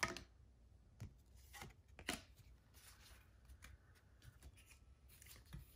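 Trading cards being handled and set down on a tabletop: a handful of faint soft taps and slides, the first near the start the loudest.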